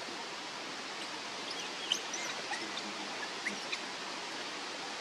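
Steady outdoor ambient hiss, with a few faint, short high chirps scattered through the middle.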